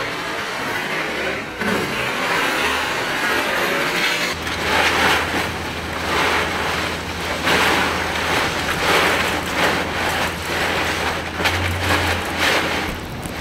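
Crushed ice in a plastic wading pool crunching and shifting in repeated swells as a polar bear cub rolls and squirms in it. A low steady hum comes in about four seconds in.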